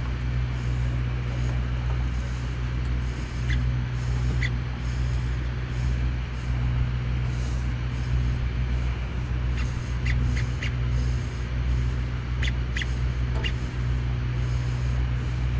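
Steady low machinery hum of the fishing boat, with a hiss of wind and water over it. A few short, high chirps come about three and a half seconds in, and again around ten and thirteen seconds in.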